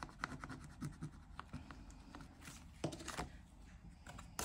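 Faint, quick scraping of a fingernail rubbing the coating off a paper scratch card, with a few sharper clicks toward the end.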